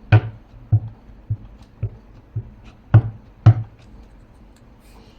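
A craft tool pressed down on paper on a tabletop, making seven sharp thumps about half a second apart; the two near the end are the loudest.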